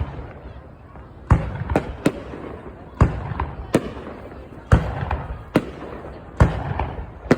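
Fireworks going off in an uneven series of about ten sharp bangs, each followed by a rumbling echo.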